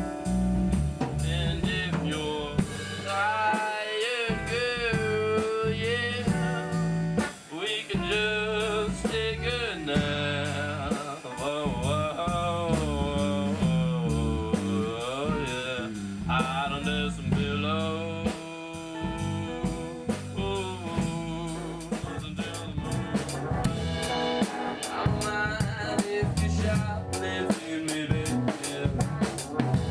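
Rock band music: a drum kit with snare and rimshot hits under bass and a wavering lead melody, the drum hits growing busier in the second half.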